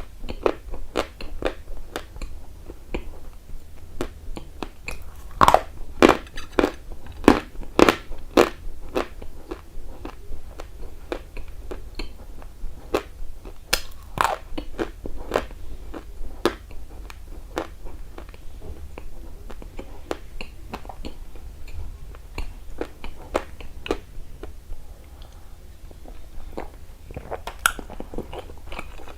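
A person biting into and chewing dry, crumbly edible earth (the clay or chalk eaten for ASMR) close to the microphone: irregular sharp crunches and crackles, loudest in two clusters, a few seconds in and again about halfway, with softer chewing crackle between.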